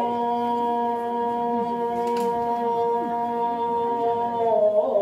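A singer holding one long, steady note of a Korean folk lament, then breaking into a wavering, ornamented melody near the end.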